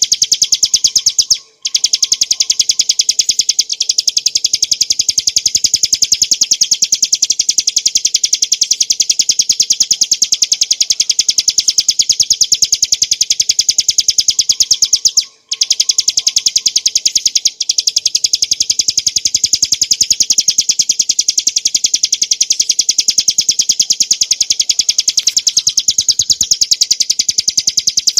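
Ciblek gunung, a prinia, singing a loud, very fast rolling trill that runs almost unbroken, stopping only briefly about a second and a half in and again about halfway through.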